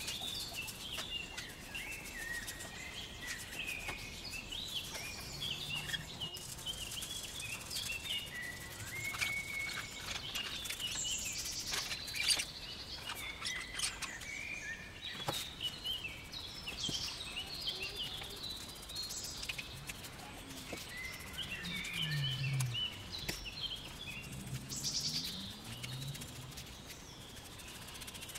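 Songbirds chirping and singing in quick, high phrases throughout, with a few soft clicks in between.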